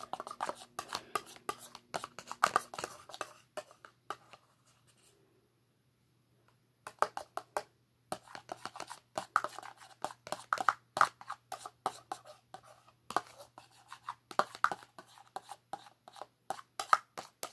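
A spoon clicking and scraping inside a black plastic measuring cup while stirring shampoo-and-salt slime, in quick, irregular clicks that stop for about three seconds partway through and then carry on.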